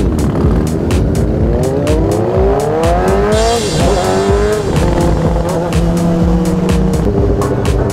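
Sport motorcycle engine heard from the bike itself, revving higher as it accelerates. Its pitch drops at a gear change about three and a half seconds in, then it runs at a steady pitch while cruising. Background music with a steady beat plays underneath.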